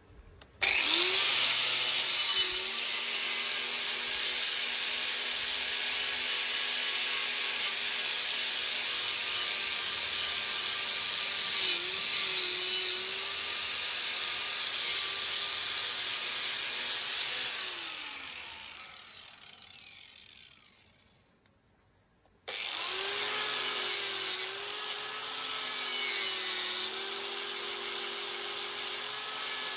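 Corded angle grinder running against steel stock, scouring rust off to get it clean for welding, its whine dipping as it is pressed into the work. It winds down and stops about two-thirds of the way through, then starts up again a second or so later.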